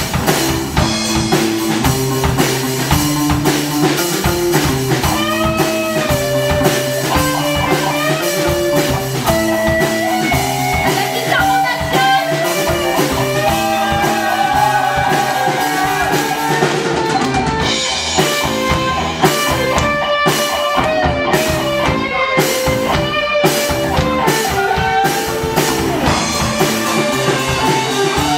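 Rock band playing live: a drum kit keeping a steady beat and guitars over a repeating low riff, with a melodic line above.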